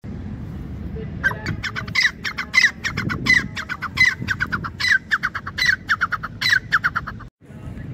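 Grey francolin calling: a fast, rhythmic run of short, high notes, with a longer, louder note about every two-thirds of a second and quicker short notes between. It starts about a second in and cuts off shortly before the end.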